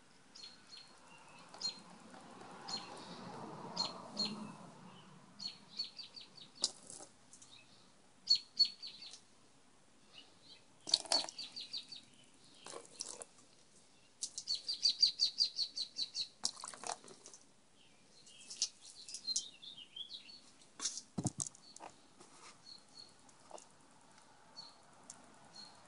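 Small birds chirping and twittering in short bursts, with a fast run of chirps in the middle. A soft rush of water comes in the first few seconds, and a few knocks and one dull thump later on.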